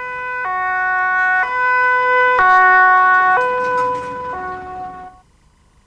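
Two-tone siren of a fire and rescue truck, switching between a high and a low tone about once a second, fading out about five seconds in.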